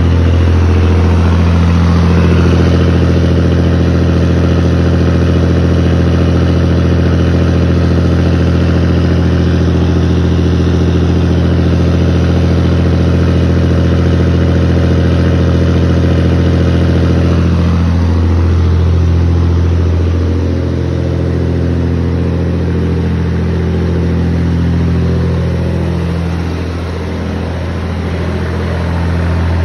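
Scania 114's inline-six diesel running steadily at idle through a straight-pipe exhaust with no muffler. Its deep engine note sags briefly about a second in and again about eighteen seconds in.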